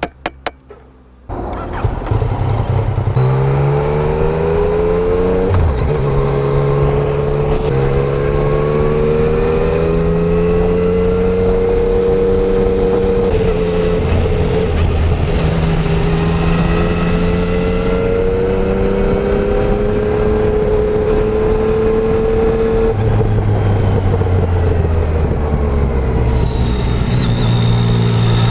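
Yamaha Tracer 900's inline three-cylinder engine through its stock exhaust, under way. It comes in loudly about a second in, then its note climbs slowly and drops back several times at gear changes.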